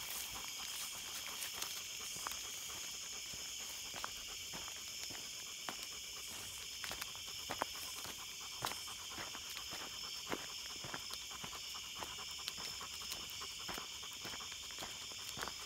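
German shepherd panting as it walks, with scattered short crunches of footsteps on a dirt path. A steady high-pitched drone runs underneath.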